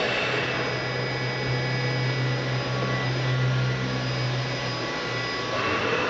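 Hardinge CNC chucker with an Omni Turn retrofit control, running under power: a steady mechanical hum with faint high whines over it. The sound shifts about five and a half seconds in.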